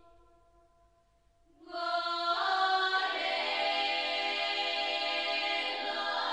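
Slow background music of sustained, choir-like voices: a held note fades away, a short hush follows, then new notes come in under two seconds in and build into a full, held chord.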